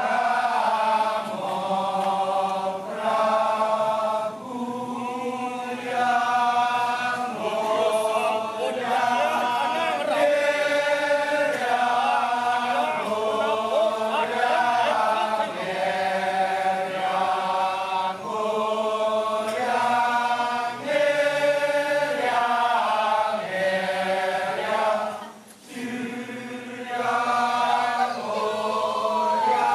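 Kecak chorus of men chanting a slow melody in long held notes, moving to a new pitch about once a second. It starts abruptly and briefly drops away about 25 seconds in.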